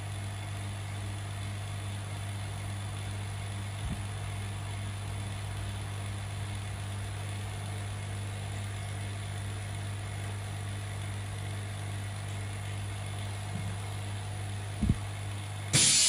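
Y106 screen laminating machine running its vacuum cycle: a steady mains-frequency motor hum from the vacuum pump, with a couple of faint clicks. Near the end a loud hiss of air starts as the chamber is vented at the end of the cycle.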